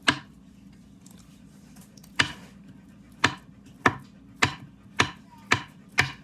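Knife slicing a banana, about eight cuts, each ending in a sharp knock on the cutting surface. One cut comes at the start and one about two seconds in, then they fall into a steady run of about two a second.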